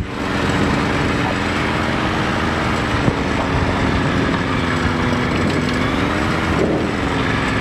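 Ultralight aircraft's piston engine and propeller running at low taxi power, heard from inside the cockpit: a steady drone whose pitch sags a little and picks up again about six and a half seconds in.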